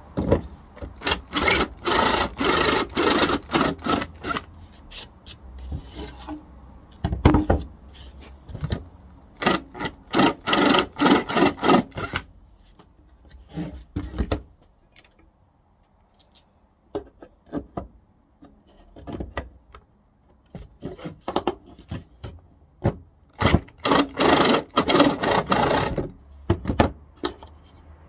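Pine board being worked by hand, quick back-and-forth rasping strokes of a hand tool on the wood, in three main runs with pauses and a few lighter strokes between.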